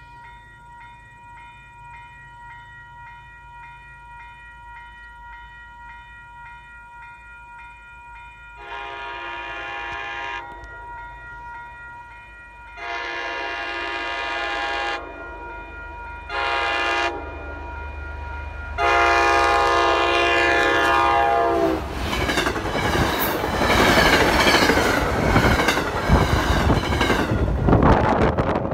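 Grade-crossing warning bell ringing steadily, then an MBTA commuter train's horn sounding long, long, short, long, the standard signal for a train approaching a road crossing. From about 22 seconds in, the train passes at speed, its wheels loud on the rails.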